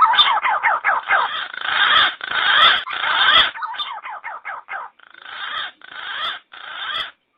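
Green pigeon (punai) lure call recording: many wavering, gliding whistled notes crowded together in a dense chorus. It breaks into shorter separated bursts partway through and cuts off suddenly just before the end.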